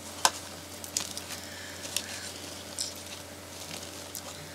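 Scattered sharp clicks and light rustling from hands handling a doll and its plastic packaging. The loudest click comes about a quarter second in.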